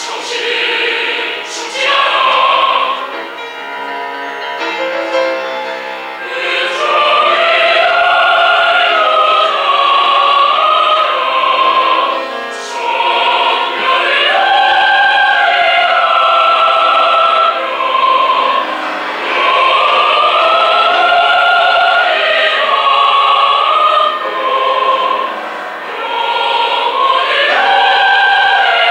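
A choir sings long, sustained phrases of a Korean choral song with piano accompaniment. The piano is most prominent in the first few seconds, and the choir sings at full voice from about six seconds in.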